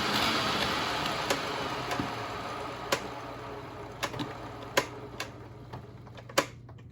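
Hoover WindTunnel upright vacuum's motor spinning down, its rush of air fading away over several seconds, with sharp clicks every second or so. The motor's carbon brushes are sticking and losing contact, so it cuts out.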